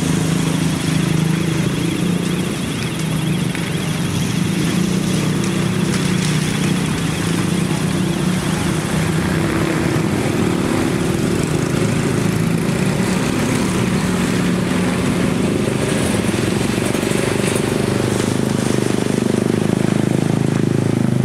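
Heavy box-girder transporter and launcher machinery with its engine running steadily: a low drone whose pitch wavers a little.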